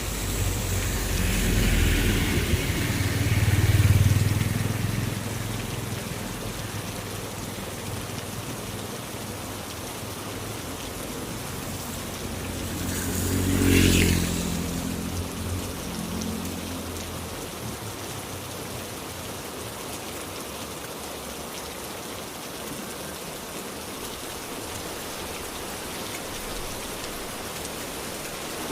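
Heavy rain falling steadily, with two vehicles passing on a wet road: one in the first few seconds and another about halfway through, each swelling and then fading.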